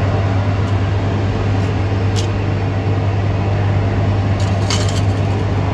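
Electric hair clipper running with a steady buzzing hum, with a few brief clicks about two seconds in and again near the end.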